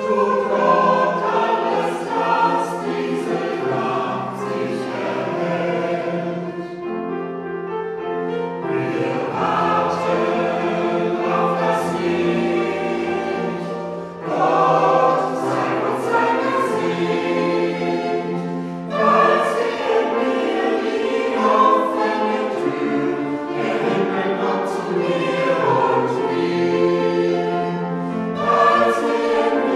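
Church choir singing a German song in several voice parts at once, moving from phrase to phrase with short breaths between them.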